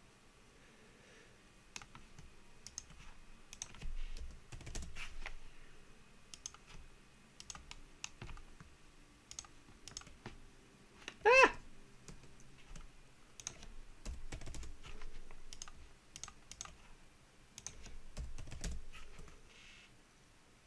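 Faint computer keyboard keystrokes and mouse clicks coming irregularly, with a few dull low thumps among them.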